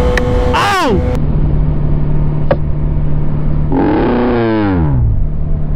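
Sport motorcycle engine running at speed under wind noise. Its pitch drops sharply just under a second in, and again more slowly around four seconds in, as the revs fall. There is a short tick about two and a half seconds in.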